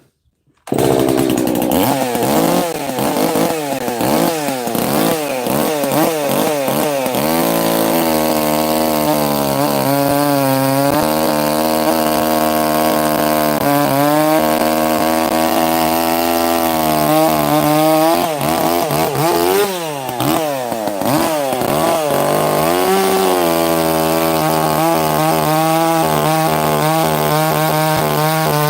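Two-stroke gas chainsaw at high revs cutting through a log, its engine pitch dropping and rising again and again as the chain loads up in the wood and frees.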